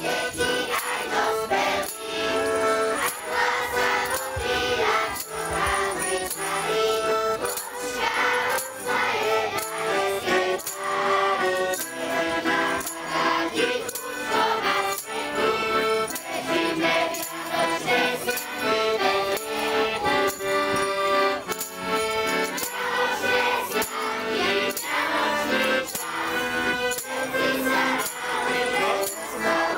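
Children's group singing a song with instrumental accompaniment, over a steady percussive beat of about two strokes a second.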